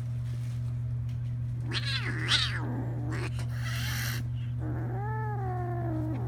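A cat meowing twice: a short call that rises and falls about two seconds in, and a longer, lower, drawn-out meow near the end. A brief rushing noise comes between the two calls, and a steady low hum runs underneath.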